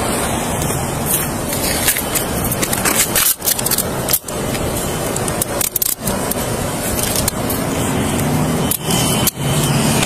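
Handling noise from a body-worn police camera rubbing and knocking against clothing and skin during a handcuffing, with many scattered sharp clicks and rattles in the middle stretch.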